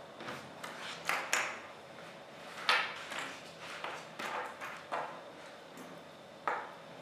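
Irregular light clicks and taps, each with a short ringing tail, about a dozen spread unevenly over several seconds, the loudest near the start and a third of the way in.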